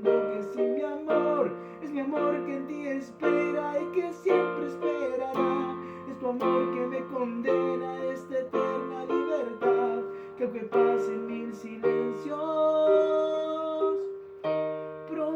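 Instrumental break of a slow song with no singing, keyboard chords held and changing about once a second.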